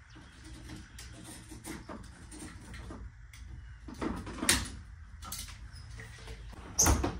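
Scattered taps, knocks and rustles of a large wall panel being pushed and pressed into place by hand, with two sharper thumps, about four and a half and seven seconds in.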